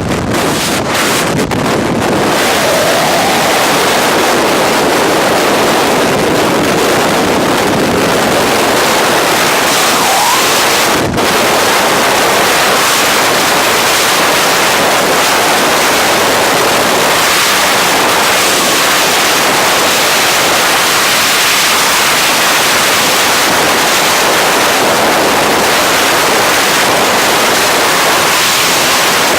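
Loud, steady rush of freefall wind buffeting the jumper's camera microphone, with one brief dip about eleven seconds in.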